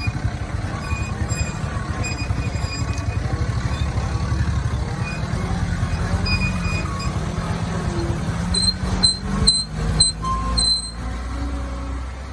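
Vehicle engines running steadily, a motorcycle close by and a sugarcane truck loaded high with cane just ahead, on a rough dirt track. Runs of short high-pitched beeps sound over them, the loudest a quick cluster of beeps and clicks near the end.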